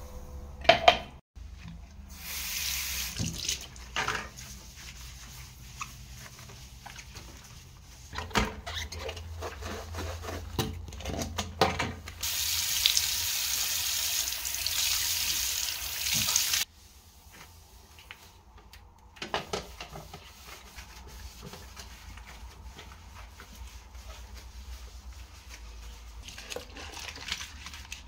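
Tap water running into a ceramic bathroom sink for about four seconds and shut off suddenly, with a shorter run of water earlier and scattered knocks of cleaning around it; a sharp knock about a second in is the loudest sound.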